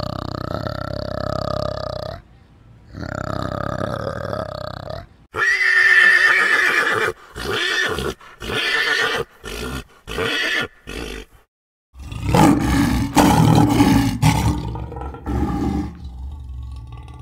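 A sequence of animal calls: a male orangutan makes two long, deep calls. Then a pony gives a run of short whinnies, and a lioness roars in several harsh bursts.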